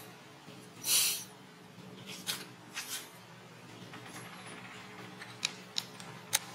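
Brief rustle about a second in, then a few soft rustles and three sharp clicks near the end, over a steady low hum. No monkey calls.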